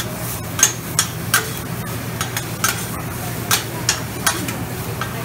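Two metal spatulas scraping and clacking irregularly on a flat-top griddle as stir-fry is tossed and turned, over a steady sizzle of frying food and a low hum.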